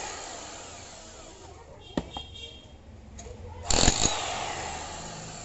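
Foster FDH-0810 1200-watt electric demolition hammer triggered in short bursts: its motor winds down from the first burst, there is a sharp click about two seconds in, and a second brief burst just before four seconds in fades off slowly again.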